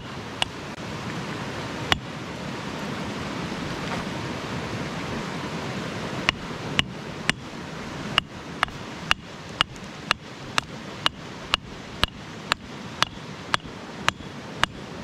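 Rock hammer striking stone: a few single blows, then from about six seconds in a steady run of sharp clinks about twice a second, over the steady rush of a creek. The rock is being broken open to get at the fossil clams inside.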